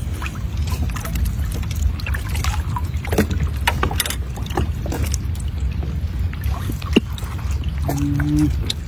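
Steady wind rumble on the microphone over open water, with a few faint clicks and splashes, and a short closed-mouth 'mm' hum near the end.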